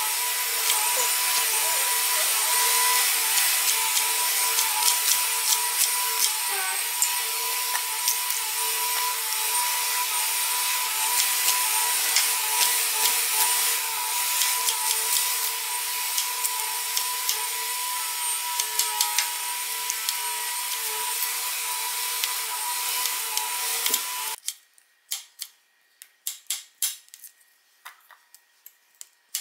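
Kitchen cooking sounds: a steady rushing noise with a faint hum, which cuts off suddenly about 24 seconds in, followed by a run of quick, sharp taps.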